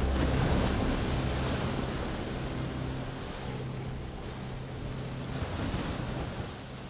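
Ocean surf and wind: a steady rush of noise that swells twice and slowly fades out, with a faint low hum held underneath.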